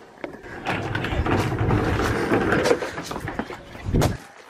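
Wind buffeting the microphone in a steady low rumble, ending in a single thump near the end.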